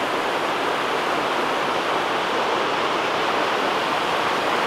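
Shallow rocky river rushing over stones and boulders in small rapids: a steady, even rush of water.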